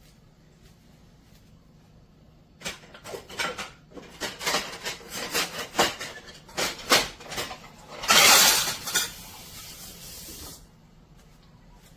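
Small stainless steel moka pot handled: a string of sharp metal clinks and knocks for about five seconds. A loud hiss of about a second follows, then a softer hiss for about two seconds that cuts off.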